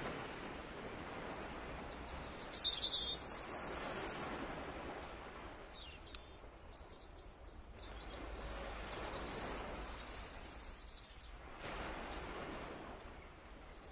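Outdoor ambience: a bird chirping in a short burst a few seconds in, over a steady rushing noise that swells and fades twice.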